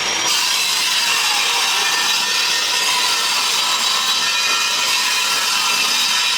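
Power saw running steadily through a wooden board.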